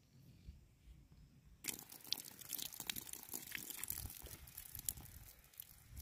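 Faint crackling patter of water drops splashing onto a sapling's leaves, beginning after about a second and a half of near silence.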